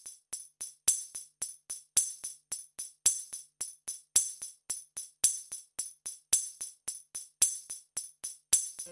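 Tambourine-style jingle percussion playing alone in a steady rhythm of about five strokes a second, with a stronger hit roughly once a second: the percussion of a dangdut electronic keyboard arrangement.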